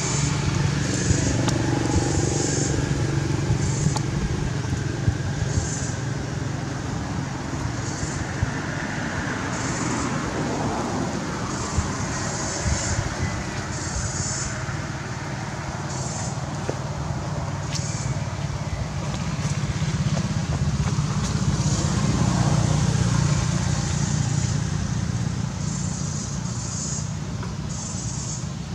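Steady low rumble of road traffic, swelling and easing as vehicles pass, with short high-pitched buzzes repeating every second or so.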